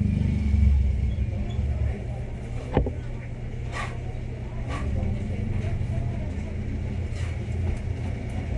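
Steady low background rumble, with one sharp click a little under three seconds in and a few faint taps as the phone and tools are handled on the bench.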